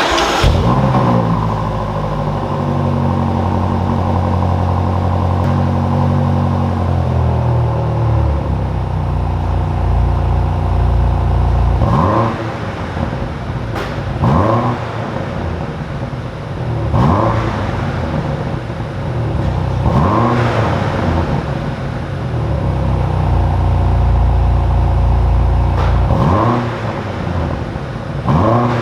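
2022 BMW M5 Competition's 4.4-litre twin-turbo V8 firing up with a flare, its idle settling lower over the first several seconds. It is then revved in about six short throttle blips through its cat-back exhaust, each a quick rise and fall in pitch.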